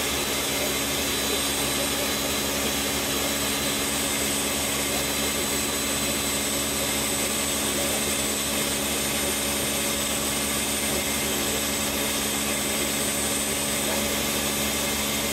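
Countertop blender motor running steadily at high speed, blending soaked walnuts and hemp seeds with water into plant milk.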